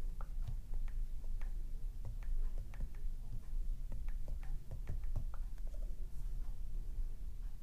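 Fingertips tapping on a tablet's glass touchscreen in its stand: a string of light, irregular ticks.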